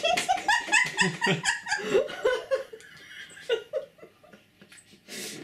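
Several people laughing helplessly in quick high giggles, which fade after about three seconds into a few stifled snickers, with a short breathy rush near the end.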